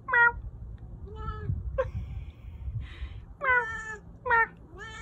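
A cat giving a string of short meows, about six in a few seconds.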